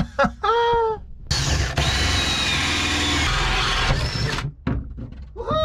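Power drill boring through a wooden boat bulkhead, cutting steadily for about three seconds. Short whines of the drill spinning up and down come just before the cut and near the end.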